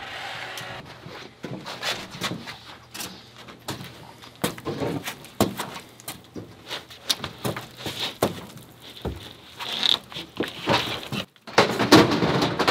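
A large sheet of OSB being handled and lowered onto foam floor insulation: irregular knocks, scrapes and rustles, with a louder burst of scraping and knocking near the end as the sheet comes down.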